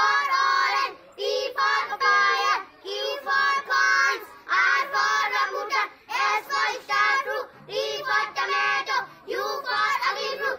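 A group of five young schoolgirls chanting in unison in a sing-song rhythm, reciting fruit names A to Z, one short phrase about every second with quick breaths between.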